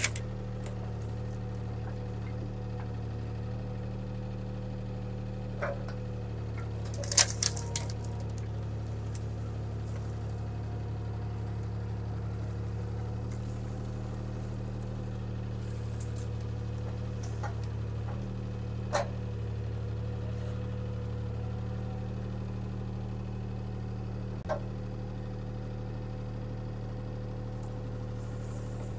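Bobcat T300 skid steer's diesel engine running at a steady pitch while it works, with a few brief knocks and clanks; the loudest is a short cluster about seven seconds in.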